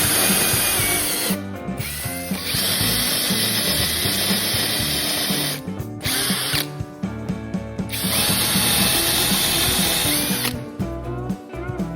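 Electric power tool running in about three runs of a few seconds each, stopping briefly between them, over background music.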